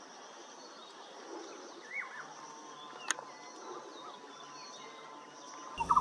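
Faint woodland ambience with a short bird call about two seconds in, a thin steady tone held through the second half, and a single sharp click about three seconds in.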